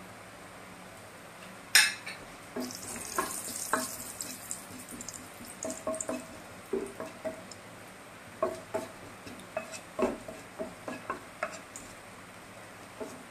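Cumin seeds sizzling in hot oil in a non-stick frying pan, the tempering stage where the seeds splutter, while a wooden spatula stirs and scrapes and taps against the pan. A sharp knock comes about two seconds in, followed by a brief burst of sizzling and then irregular scraping and tapping.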